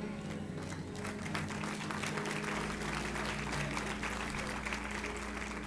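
Congregation applauding, building up about a second in, over music holding steady low notes.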